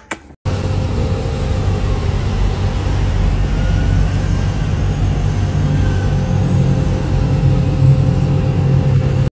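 A steady, loud mechanical drone, like a motor running, with a constant hum. It starts abruptly just after half a second in and cuts off near the end.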